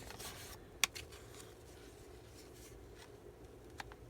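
Paper and card pieces being handled on a desk: light rustling with a sharp tap about a second in and a smaller one near the end.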